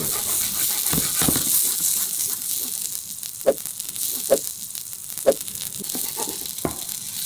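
Marinated lupin tempeh cubes frying in hot oil in a pan: a steady sizzle with a few short sharp pops.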